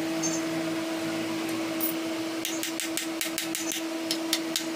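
A T-handle wrench working the crankcase bolts of a 100cc motorcycle engine makes a quick run of sharp metallic clicks, about six a second, from about halfway through. A steady hum runs underneath throughout.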